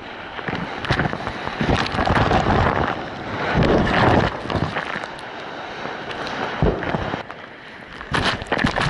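Ocean whitewater rushing and splashing right at the microphone, with wind buffeting it, in irregular surges that are loudest from about two to four seconds in.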